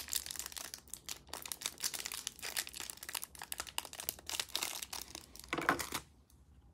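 Clear plastic wrapper sealed around a stack of trading cards crinkling as hands twist and pull at it, trying to tear it open. The wrapper does not give, and the crinkling stops about six seconds in.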